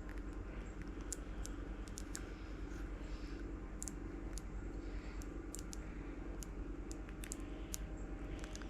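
Scattered light clicks and taps of small plastic pieces and a resin bottle being handled, at uneven spacing, over a steady low hum.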